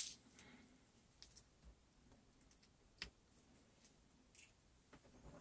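Faint handling of USB cables and plastic plugs: a few light clicks, one sharper about three seconds in.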